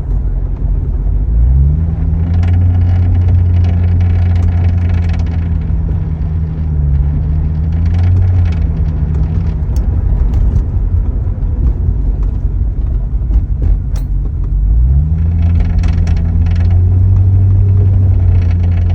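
2009 Chevrolet Corvette C6's V8 brought up from idle and held at a raised speed a few times, dropping back between. A rattle rides on top, strongest while the engine is held up, which the owner takes for a ball bearing.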